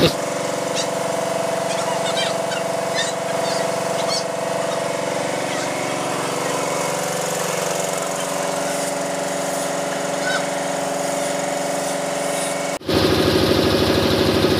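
Air compressor running steadily to feed a paint spray gun, with the hiss of spraying over it. About two-thirds of the way through, the hum breaks off and starts again louder with a slight pulsing.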